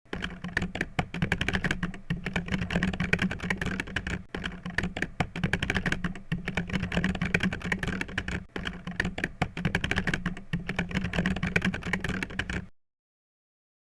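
Rapid, dense clicking like fast typing on a computer keyboard, coming in stretches of about two seconds with short breaks between, and cutting off suddenly near the end.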